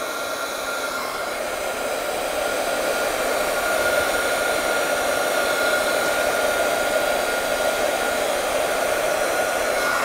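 Handheld electric heat gun running steadily: a blowing rush with a faint steady whine, shrinking heat-shrink tubing over spliced fan wires.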